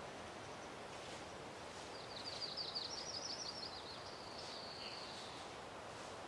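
A small bird sings a quick trill of rapid high notes about two seconds in, trailing off after about three seconds, over a steady outdoor hiss.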